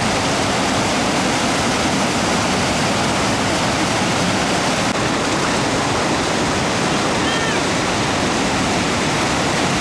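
Whitewater rapid rushing: a loud, steady wash of churning river water with no let-up.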